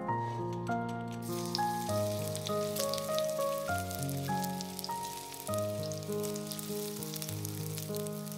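Food frying in a pan, a sizzle with fine crackles that starts about a second in, over background music.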